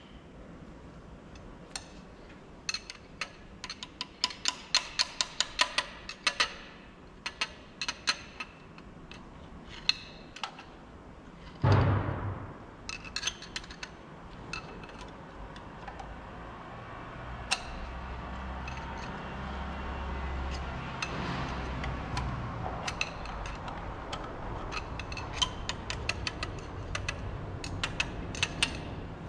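Light metallic clicks and taps of a hand tool working against the crankshaft and main bearing seats of a Volvo D13 truck engine block, with one louder knock about twelve seconds in. A low steady hum comes in from about sixteen seconds on.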